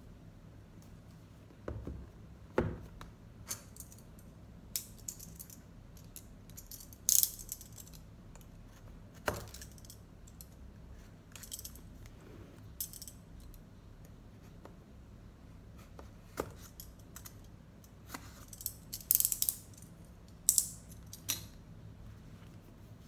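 Handling of a cardboard tablet box on a wooden desk: scattered taps and knocks with several short, louder scrapes and rustles as the cardboard sleeve and box slide and are moved.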